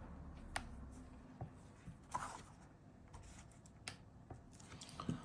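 Faint, scattered clicks and short rustles of a small hand tool and other objects being handled on a table.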